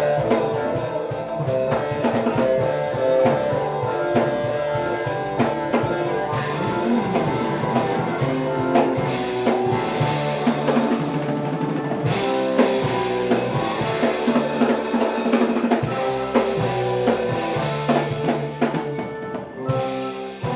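Live band playing an instrumental passage, with guitar over a steady drum kit beat.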